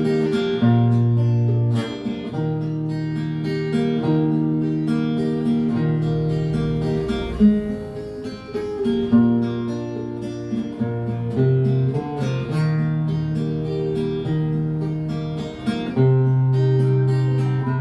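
Acoustic guitar playing an instrumental passage, strumming and picking a chord progression that changes every second or two.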